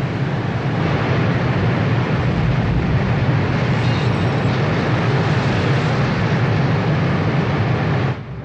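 Loud, steady roar of a huge waterfall and rushing water, cutting off suddenly near the end.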